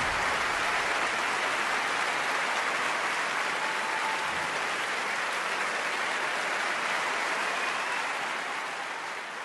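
A steady wash of noise in the music video's soundtrack, like applause or heavy rain, with no music or voice over it. It fades a little near the end and then cuts off abruptly.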